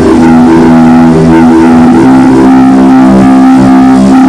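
Sustained instrumental chords, held steady, with a chord change near the start: a worship pad playing under the prayer.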